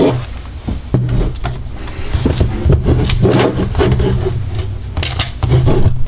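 Laptop being lifted and turned over on a desk by hand: rubbing and scraping of its plastic case, with scattered knocks and clicks.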